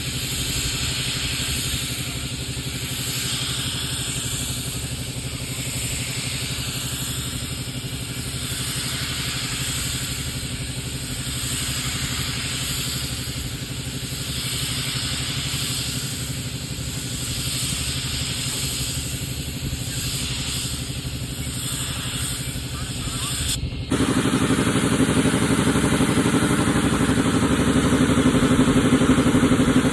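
A motor running steadily with a hiss that swells and fades every couple of seconds. About 24 s in it cuts abruptly to a louder, deeper machine running steadily.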